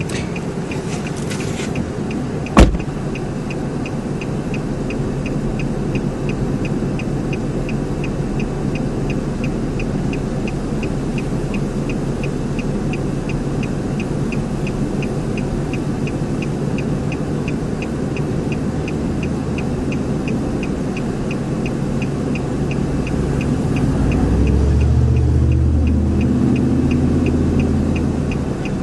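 Steady low rumble of a vehicle's engine and wind, with a light regular ticking about twice a second. A sharp click comes about two and a half seconds in, and the low engine sound grows louder near the end.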